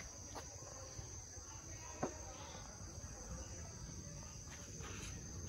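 Faint, steady high-pitched trill of insects, with a single soft click about two seconds in.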